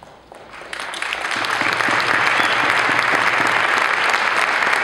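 A large audience applauding: the clapping begins about half a second in, builds over the next second and holds steady.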